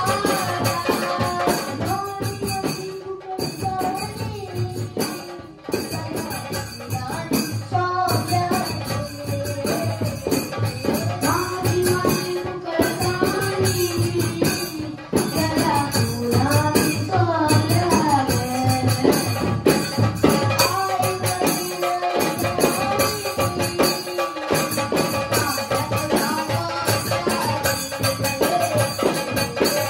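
A chorus of boys singing a Konkani ghumat aarti, a Goan devotional song, over ghumat clay-pot drums and other hand percussion. There are a few short breaks between sung lines.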